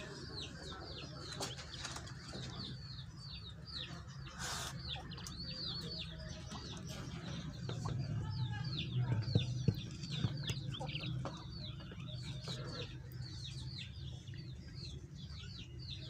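Many small caged birds chirping continuously, a rapid run of short high chirps that fall in pitch, over a steady low hum, with a few knocks and rustles from the birds moving about; the sharpest knock comes about four and a half seconds in.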